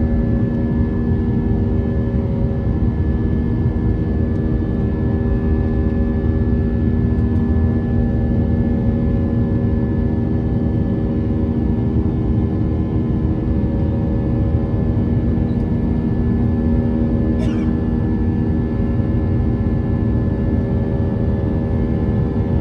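Airbus A320 jet engines running steadily in flight: a constant rumble with several steady humming tones that hold the same pitch throughout.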